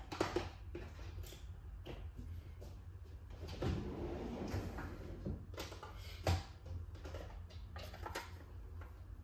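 Faint scattered clicks and light knocks, with a stretch of rustling handling noise about halfway through, over a low steady hum.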